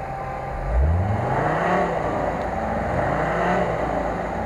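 Off-road vehicle engine revving hard twice under load during a tow-strap recovery from mud. It climbs steeply about a second in, eases off, and climbs again near the end.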